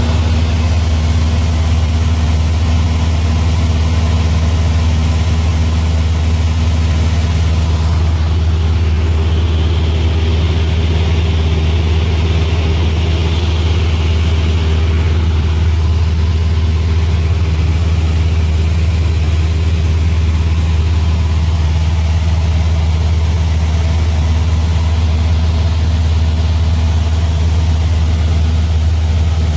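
Cessna 172's piston engine and propeller running at a steady, unchanging pitch, a loud continuous drone. A softer hiss swells and fades about ten seconds in.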